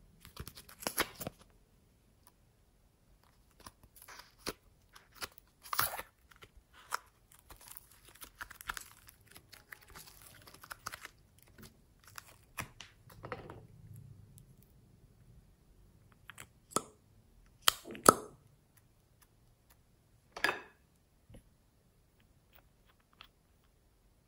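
Hand-played slime: a plastic slime tub handled and opened, and glossy slime stretched and pulled apart by hand, giving crackling, tearing sounds with a few sharp clicks, loudest about three-quarters of the way through.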